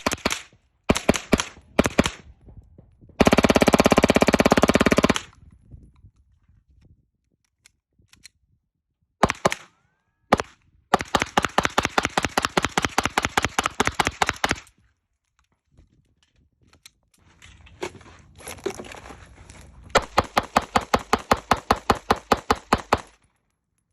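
Rapid gunfire from a firearm fitted with a forced reset trigger: a few short bursts, a very fast string lasting about two seconds, a couple of single shots, then two long strings of shots at several a second.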